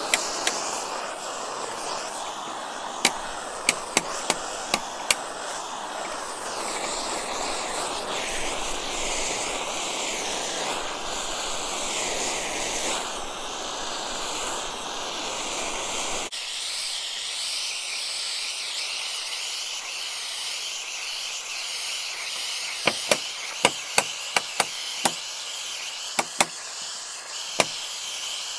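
Propane torch wand burning with a steady rushing roar as it dries snow and ice off the concrete block and wooden bottom plate; the roar stops abruptly about 16 seconds in. A run of sharp clicks and knocks follows near the end.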